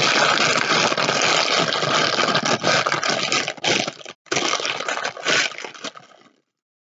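Clear plastic packaging bag crinkling and rustling as a boxed jewelry storage case is pushed back into it by hand, close to the microphone. It breaks off briefly a little past four seconds in and stops about six seconds in.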